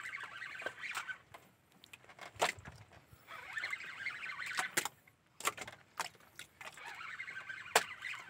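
Fishing reel being cranked in three short spells, about a second and a half each, as a fish is worked up on a jigging rod, with a few sharp clicks and knocks from the rod and reel between them.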